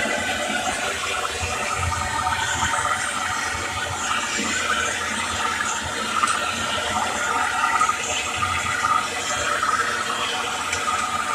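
Hand-held gas torch flame hissing steadily while it thaws ice off a refrigerator's evaporator and fan housing.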